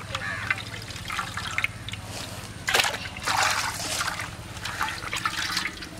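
Hands washing raw duck pieces in salted turmeric water in a steel bowl: irregular splashing and sloshing, loudest about three seconds in.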